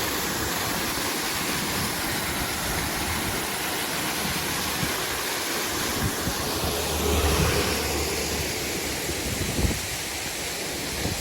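Waterfall: a steady, even rush of falling water, with a faint low hum for a couple of seconds in the middle.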